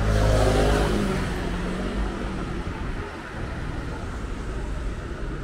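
A motor vehicle passing close by, loudest in the first second, its engine pitch dropping as it goes away, then steady street noise.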